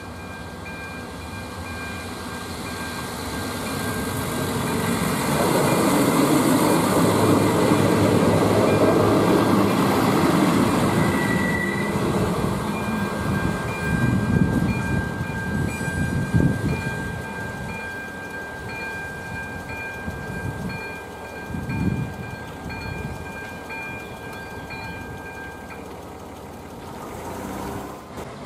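Diesel railcar passing close by, its engine running loudest a few seconds in, then the wheels clacking over rail joints about three times. A level-crossing warning bell rings steadily throughout and stops shortly before the end.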